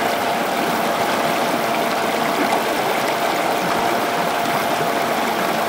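Small electric motor of a homemade mini water pump running steadily with a constant whine, with water flowing along the soil channel.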